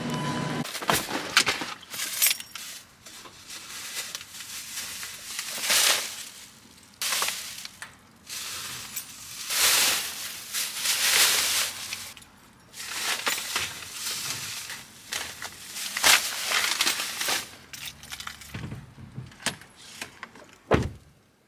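Thin plastic grocery bags rustling and crinkling in irregular bursts as they are set down on a car's back seat. A single thump near the end.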